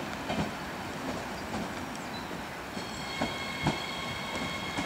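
A train moving along the tracks, its wheels knocking now and then over rail joints. About three seconds in, a steady high squeal of several tones sets in over the rumble.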